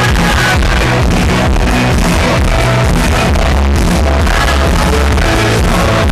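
Loud electronic dance music with heavy, steady bass and a regular beat, as played over a club sound system.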